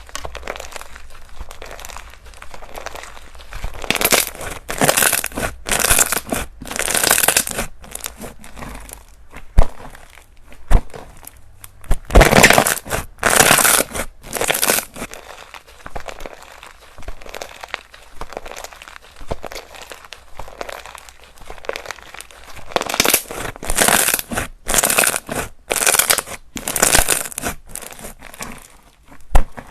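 Slime being squeezed, pressed and stretched by hand, in runs of bursts about one a second with a few sharp clicks between.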